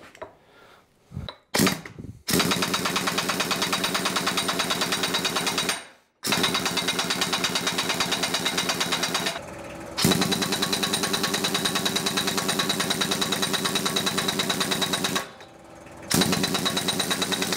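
Large pneumatic impact wrench hammering on the end of an excavator bucket cylinder's rod, in long runs of rapid, even blows. It starts about two seconds in and stops briefly three times, about six, nine and fifteen seconds in.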